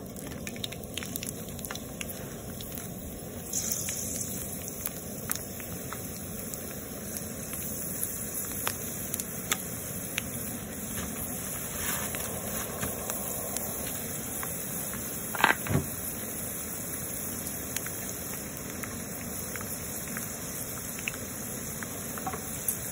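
Dried espada (hairtail) fish frying in hot oil: a steady sizzle dotted with small crackles and pops, with one louder short clack about two-thirds of the way through.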